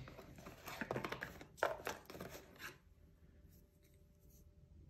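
Light clicks, taps and rustling of pens and a wooden pencil being handled and lifted out of a cardboard box, bunched in the first three seconds.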